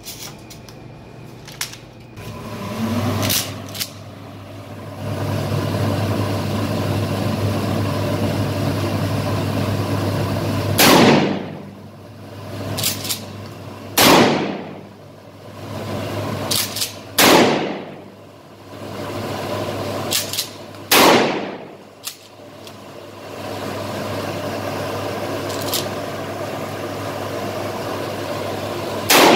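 Pump-action shotgun firing Shooter-brand shotgun shells in an indoor range: five loud shots with echoing tails. The first four come about three seconds apart with the pump racked between them, and the last comes near the end. In the first few seconds there are clicks as shells are loaded, and a steady low hum runs underneath.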